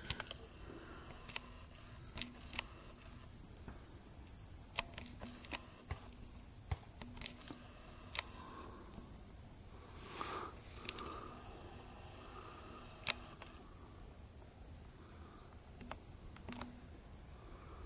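Steady, high-pitched chorus of insects chirring, with a few faint scattered clicks.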